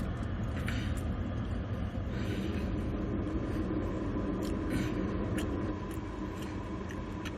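A steady low rumble, with a few short, faint clicks of eating.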